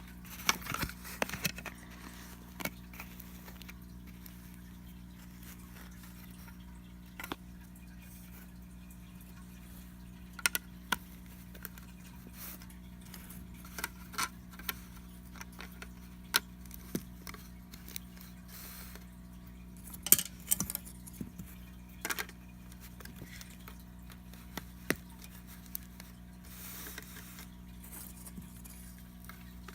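Lego bricks being handled and snapped together: scattered small plastic clicks and taps in irregular clusters, over a steady low hum.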